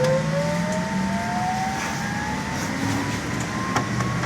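Electric traction drive of a LAZ E-183D1 trolleybus whining as the trolleybus accelerates, the whine rising steadily in pitch. A sharp click sounds near the end.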